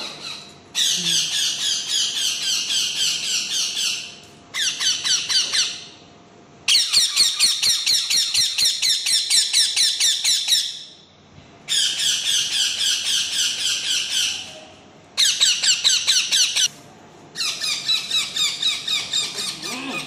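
Young green parakeets squawking in rapid, repeated harsh calls, about five a second. The calls come in six bouts of a few seconds each, with short pauses between.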